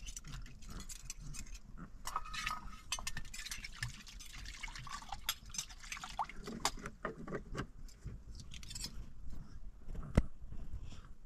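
Plastic bag being handled, crinkling and rustling in a run of small clicks and scratchy bursts, with one sharp click about ten seconds in.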